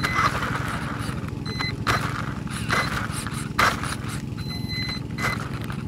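RC car's electric motor and gear drivetrain running with a steady whir, heard from a camera mounted on the car, broken by about five sharp knocks and scrapes as it jolts over cracks in the asphalt, the loudest about midway.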